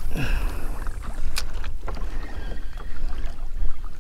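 Wind rumbling on the camera microphone, with scattered light clicks and knocks from the spinning reel and fishing gear on a kayak.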